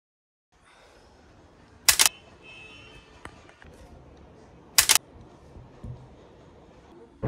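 Quiet room tone with two sharp double clicks, about two and five seconds in, and a few lighter taps, as a smartphone is picked up and handled on a table.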